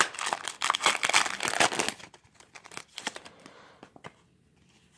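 Pokémon booster pack's foil wrapper crinkling and tearing as it is handled and opened, dense for the first two seconds, then a few scattered crackles before it falls quiet near the end.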